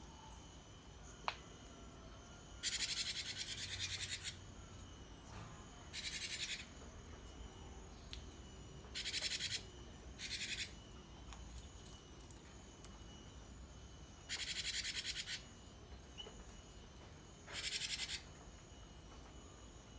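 Caged gelatik batu (cinereous tit) giving rapid, high-pitched chattering trills in six short bursts, each half a second to a second and a half long, with pauses of a few seconds between them.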